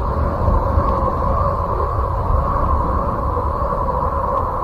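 Voyager 2's radio recordings of the planet Uranus converted into sound: a steady rumbling drone with two humming tones running through it.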